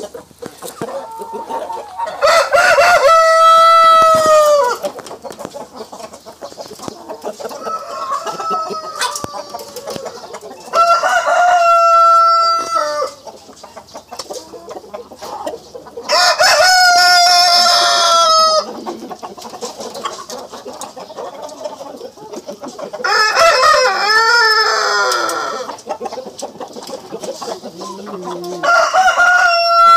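Brahma roosters crowing, five long crows spaced about five to eight seconds apart. Hens cluck more quietly in between.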